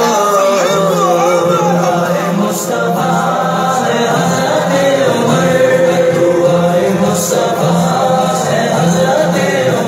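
A devotional song sung by a group of voices, with a steady, regular beat underneath.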